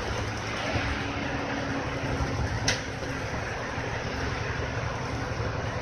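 Nissan Diesel KL-RP252GAN bus's diesel engine idling steadily while the bus stands still, with a single sharp click a little before halfway.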